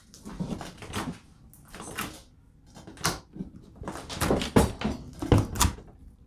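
Homemade pumpkin slime with pumpkin seeds being squeezed and pressed by hand on a tabletop: irregular sticky squelches and pops, with a few heavier thumps of the hands against the table in the second half.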